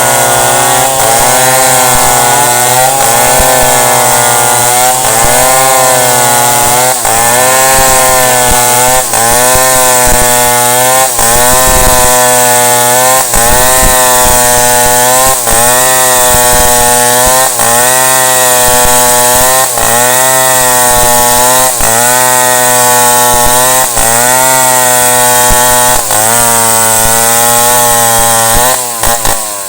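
Chainsaw cutting wood at full throttle, its engine pitch dipping and recovering about once a second as the chain bites into the cut. Near the end it lets off and the engine falls away.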